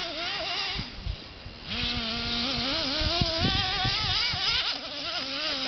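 Radio-controlled car's motor running as it is driven across a lawn. Its pitch keeps rising and falling with the throttle. It eases off about a second in and revs up again near two seconds, with a few short knocks as the car bounces over the grass.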